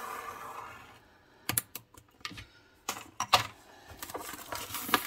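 Shrink-wrapped cardboard kit box being slit and handled: a soft scrape of a pointed tool drawn along the plastic film, then a run of sharp clicks and taps of fingers and long nails on the box, with the film starting to crinkle near the end.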